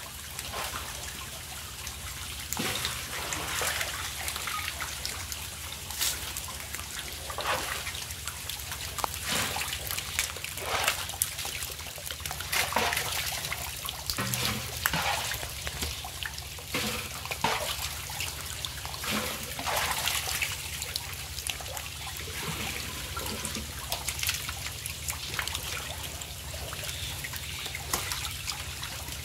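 Live catfish crowded in shallow water, wriggling and splashing: many small irregular splashes over a steady trickle of water, with a plastic scoop dipping in among them.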